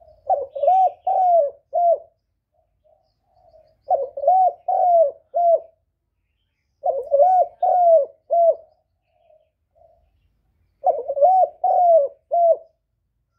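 Spotted dove cooing: four phrases, each a quick run of about four low coos, repeated about every three and a half seconds, with soft quieter coos between phrases.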